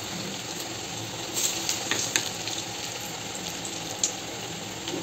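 Chana dal pakodas deep-frying in hot oil in a kadai: a steady sizzle with a few short, sharp crackles.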